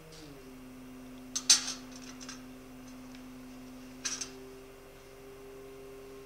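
Phacoemulsification machine's steady two-note feedback tone, which steps down in pitch just after the start and then holds level; the pitch follows the aspiration vacuum and pedal position. Two short, sharp clicking bursts come at about one and a half and four seconds in.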